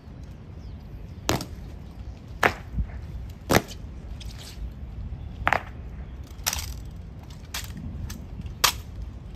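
Honor guards' drill strikes: seven sharp cracks about a second apart, with a longer pause after the third.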